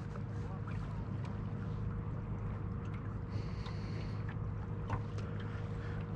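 Boat motor running steadily with a low hum while the boat moves slowly over choppy water.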